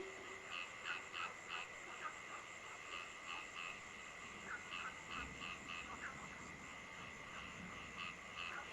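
Frogs calling at night in short repeated notes, often in quick runs of three, over a steady hiss of rain and a continuous high-pitched drone.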